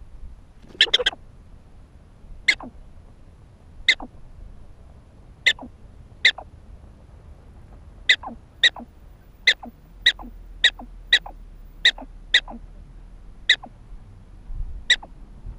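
Black-tailed prairie dog barking over and over, each bark a short, sharp call that drops quickly in pitch: a quick cluster of three about a second in, then single barks one to one and a half seconds apart, coming faster in the middle. The repeated barking is the prairie dog's alarm call.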